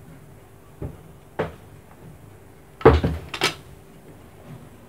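A few short knocks and a clatter of a kitchen utensil on a worktop while phyllo sheets are cut and handled; the two loudest knocks come about three seconds in.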